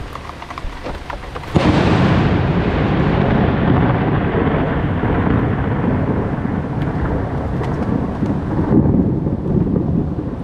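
Rain, then about a second and a half in a sudden loud thunderclap from a close lightning strike, its sharp crack fading into a long, heavy, low thunder rumble.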